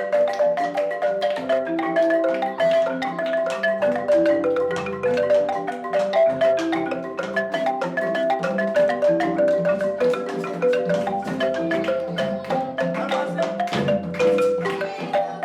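Marimba music: a quick melody of short, ringing struck notes over a lower, slower line.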